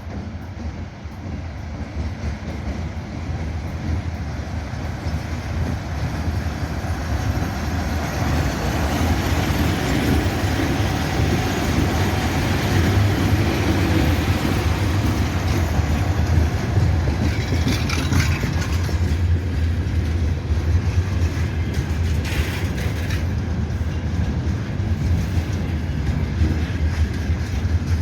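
Slow container freight train rolling past. Its low rumble grows louder over the first several seconds and then holds steady, with two brief high-pitched screeches about 18 and 22 seconds in.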